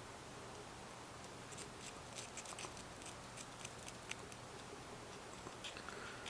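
Faint light clicks and scratches of hand work on a small homemade metal lock pick, a quick run of ticks from about one and a half to four seconds in and a few more near the end.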